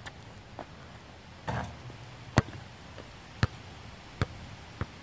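A basketball bouncing, about six separate bounces at uneven intervals, the loudest about two and a half seconds in, with a brief scraping rattle about a second and a half in.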